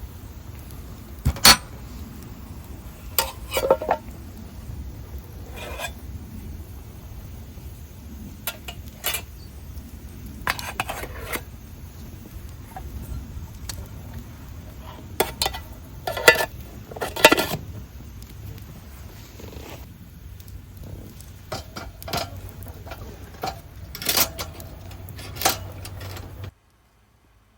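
Camp dishes and cutlery clinking and knocking now and then, a dozen or so sharp separate clinks over a steady low background hum. The sound cuts off suddenly near the end.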